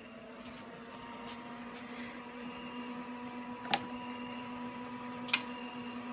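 Cooling fan and power supply of a homebuilt LDMOS HF linear amplifier running with a steady hum, slowly growing a little louder as the amplifier is brought up to full power. Two sharp clicks come about a second and a half apart.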